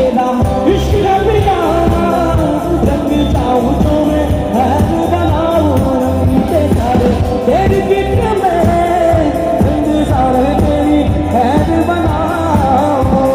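Assamese pop song performed live through a PA system: a male singer's voice over a band with a steady bass-heavy beat.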